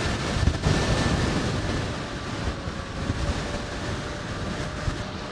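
Strong headwind buffeting the microphone of a rider on an electric scooter at speed: a rough, uneven rushing roar, with a faint steady tone underneath.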